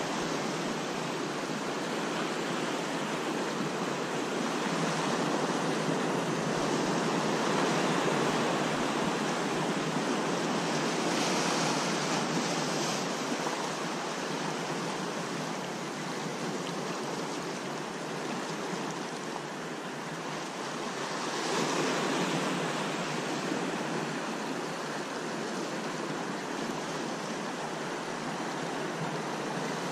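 Sea swell surging and breaking on rocks: a steady rush of surf that swells louder and eases off again as waves come in.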